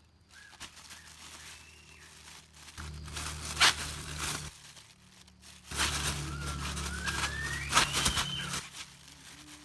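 Thin plastic carrier bag crinkling as hands grip and twist it shut, in two bouts about three and six seconds in.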